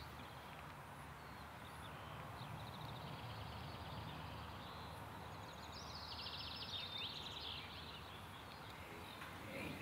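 Quiet outdoor ambience with faint birdsong: a few short, chirping bird phrases in the middle of a low, steady background hush.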